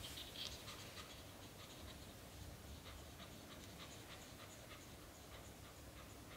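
British shorthair mother cat panting fast and faintly through an open mouth, about three breaths a second.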